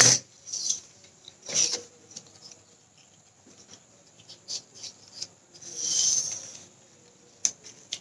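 Young coconut leaf strips rustling and crackling as they are handled, rubbed against each other and drawn through a weave, with a sharp click at the start as a metal utility knife is set down on the cutting mat. A longer, soft swish of leaf sliding comes about six seconds in.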